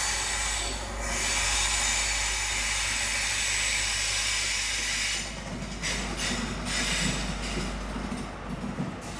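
A train running along the platform: a loud rushing hiss from the wheels on the rails that drops away about five seconds in, leaving a lower rumble.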